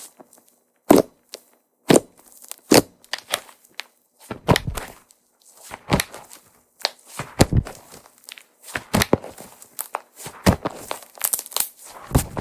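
Hands squeezing and poking a soufflé-pancake-style slime, making irregular sticky pops, clicks and short crackles with brief pauses between them.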